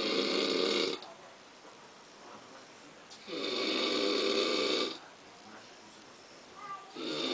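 Slow, regular snoring, one snore about every three and a half seconds: one fades out about a second in, a full one runs from about three to five seconds in, and another starts near the end.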